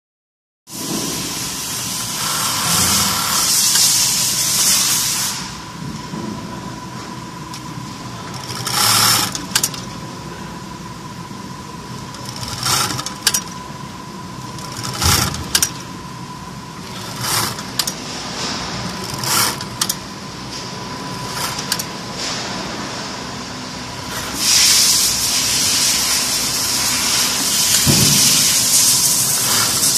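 Zoje 9610 direct-drive single-needle post-bed sewing machine stitching in bursts: a longer run near the start, a string of short runs with pauses in the middle, and another long run near the end.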